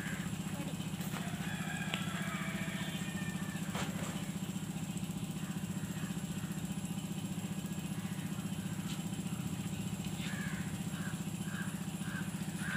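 A motor or engine runs steadily as a low drone with a fast, even pulsing. Near the end, a row of short, higher calls about half a second apart sits over it.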